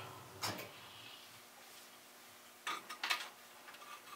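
Small metal mower parts clinking against each other or a container, a few separate light clinks about half a second in and again near three seconds.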